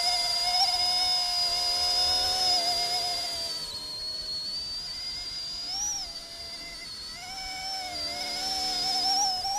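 High whine of the RC ERA C123 EC135 scale helicopter's dual brushless direct-drive motors and rotors in flight, a steady whistle-like tone whose pitch wavers. The pitch dips a little about four seconds in, rises briefly near six seconds, and climbs again near the end.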